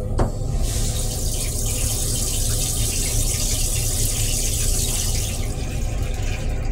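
Metro-North M3 railcar toilet flushing: a high, steady hiss starts about a second in and stops after about five seconds, over a steady low rumble.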